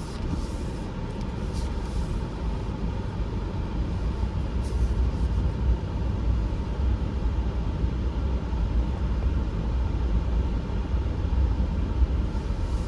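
A vehicle driving, a steady low rumble.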